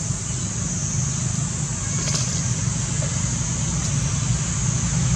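Steady outdoor background noise: a continuous low rumble under a constant high-pitched hiss, with a faint click about two seconds in.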